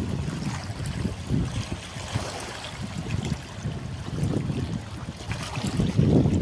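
Harbour water lapping and sloshing close by, with uneven gusts of wind buffeting the microphone as a low rumbling noise.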